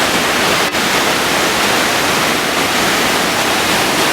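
Dawson Falls, a large waterfall, rushing with a steady, loud roar of falling water.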